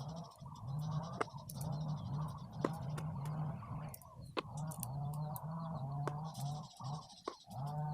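Sharp, scattered clicks of small magnetic balls snapping together, a dozen or so, over a steady background of many birds calling.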